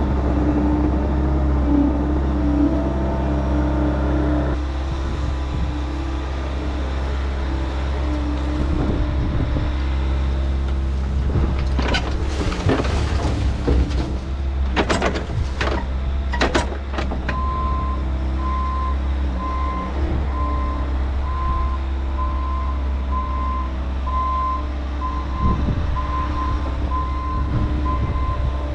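Diesel heavy equipment running steadily, with a few sharp clanks partway through. A backup alarm then starts beeping at an even pace, about once a second, as a machine reverses.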